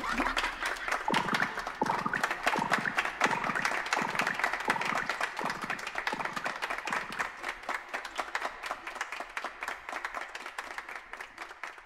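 Applause: a dense patter of clapping that gradually fades away and stops just before the end.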